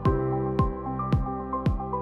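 Background electronic music with a steady beat: a deep kick drum about twice a second, coming in at the start, over held synth notes.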